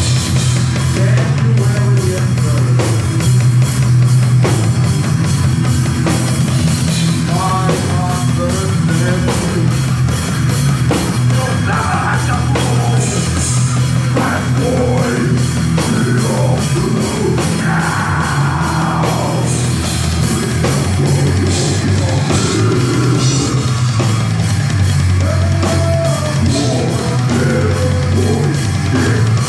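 Live horror-punk band playing loud: drum kit, distorted electric guitars and bass, with a singer's vocals over the band.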